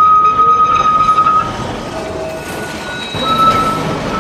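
A tram running on its rails with a rumble, its steel wheels squealing in long steady high tones: one strong squeal that fades about one and a half seconds in, and another near the end.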